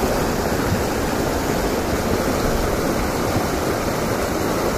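Steady rushing of flowing river water, an even hiss with no breaks.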